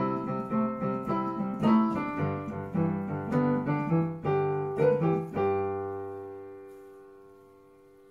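Background piano music: a run of notes ending about five seconds in on a held final chord that slowly fades away.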